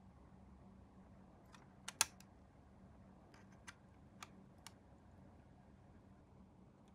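Light clicks and taps from small plastic model-kit parts and tools being handled on a work surface. There are about seven sharp clicks over roughly three seconds, the loudest about two seconds in, over a faint steady hum.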